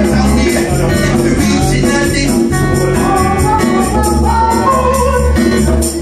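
A live reggae band playing with a steady beat, a bass line, and regular shaker-type percussion strokes; a melody line rises and falls in the middle.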